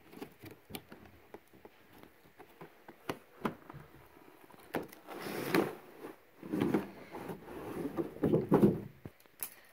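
Cardboard doll box being torn open and handled by hand: scattered small taps and crinkles, then several longer tearing, scraping rustles in the second half.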